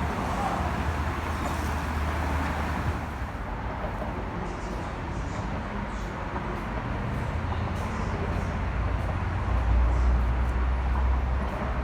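Car on the move: a steady low engine-and-road rumble with tyre noise, growing louder for a moment near the end.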